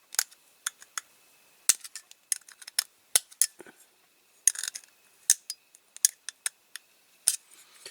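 Irregular small clicks and taps of a die-cast toy model's parts being handled and fitted back together, metal knocking lightly against metal.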